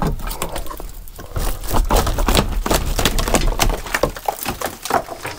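Rotten wooden boat frame being pulled apart and broken off by hand: a rapid, irregular run of cracks and crunches as the decayed timber splinters and crumbles.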